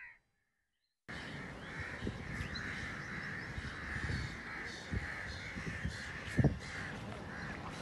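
Crows cawing continuously, many together, starting about a second in after silence. A few low thumps break through, the loudest about six and a half seconds in.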